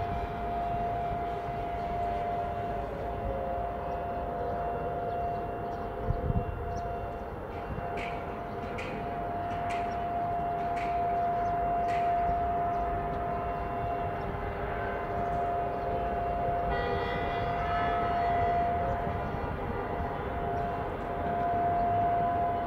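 Air raid sirens sounding one long steady tone across the city, with a fainter siren wail slowly rising and falling beneath it. A brief low thump comes about a quarter of the way in, and about three-quarters in a held chord of vehicle horns joins for a couple of seconds.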